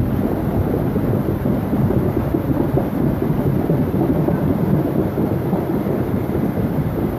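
Storm-swollen creek running fast: a steady, low rushing of floodwater, with no separate claps or strikes.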